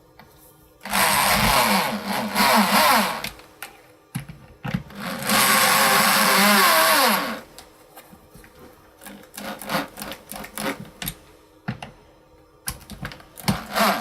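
Vacuum cleaner switched on twice, each time running for about two seconds as it draws through a home-made cyclone separator; the motor's pitch falls away as it winds down after the second run. This is followed by scattered clicks and knocks of handling.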